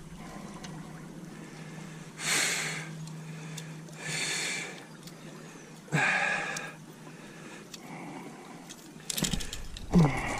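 A person breathing hard and sniffing, with short breaths about every two seconds, over a faint steady low hum.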